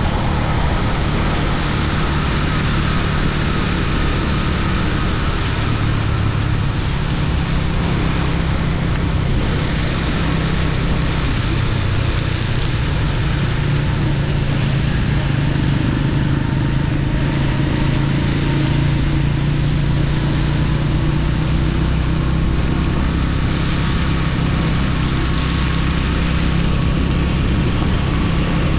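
Motorcycle engine running steadily while riding, with a constant rush of wind and tyre noise from a wet road, heard from a camera mounted on the bike.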